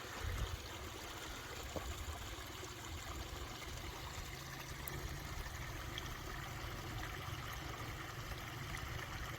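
Steady rushing outdoor noise with a low, unsteady rumble underneath.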